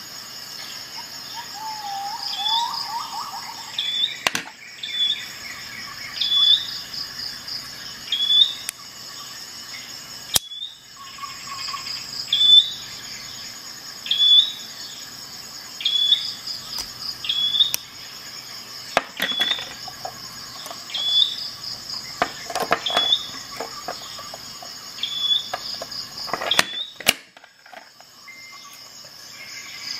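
Insects chirping in the background, with a steady high drone and a short high chirp repeating about every second and a half. A few sharp clicks come from the metal multifunction pliers being handled.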